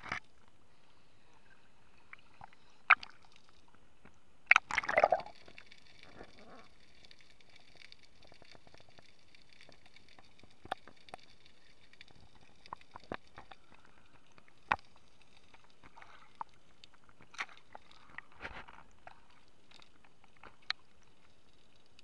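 Muffled underwater sound through an action camera's waterproof housing: scattered sharp clicks and ticks, a short gurgling burst about four and a half seconds in, and a faint steady high hum.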